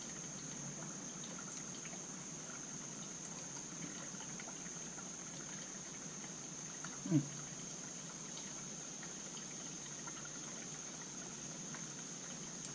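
Low steady background hiss with a faint high whine, under faint small clicks of small carburetor parts being handled. About seven seconds in, a brief hum-like murmur from a person.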